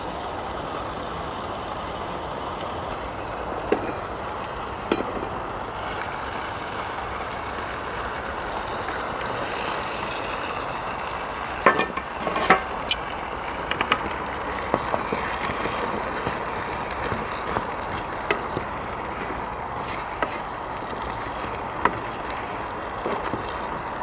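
Potato and cauliflower curry sizzling steadily in oil in a Trangia 25 pan over a gas burner. Scattered knocks and clinks from stirring come through it, with a cluster about twelve seconds in.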